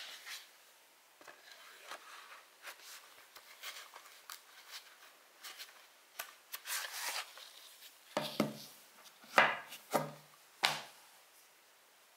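A plastic 4K Blu-ray case and its cardboard slipcover being handled with cotton-gloved hands: light clicks and rubbing, a longer sliding rub about seven seconds in, then four louder plastic knocks in quick succession near the end.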